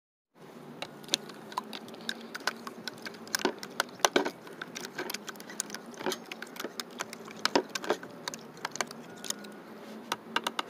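Plastic fork whisking raw eggs in a plastic container: quick, irregular clicking and tapping of the fork against the container's sides.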